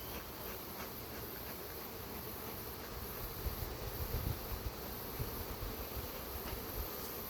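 Honeybees buzzing around an opened hive in a steady hum. Low rumbling bumps come about three to five seconds in.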